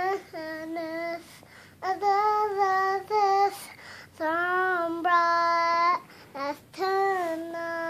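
A young girl singing in four short phrases of long held notes, with brief pauses between them.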